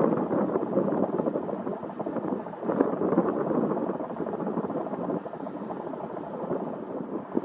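An aircraft engine running, a rough noise that swells and fades.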